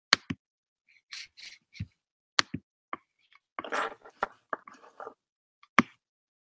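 Scattered small clicks and short soft rustling noises at a low level, about eight sharp clicks irregularly spaced, the last near the end.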